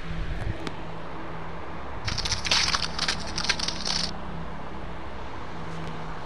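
A crackling, crunching sound effect starts about two seconds in and lasts about two seconds, over a low steady hum.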